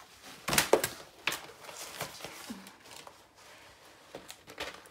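A large diamond painting canvas and its protective release paper rustling and crackling as they are lifted, flipped over and laid down. The loudest rustle comes about half a second in, followed by scattered smaller ones and a few more near the end.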